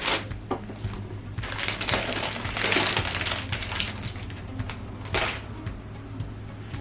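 Packaging being handled and rustled while a motherboard box is unpacked: short crinkles at the start and a little after five seconds, with a longer, louder stretch of crinkling from about one and a half to three seconds in. Faint background music underneath.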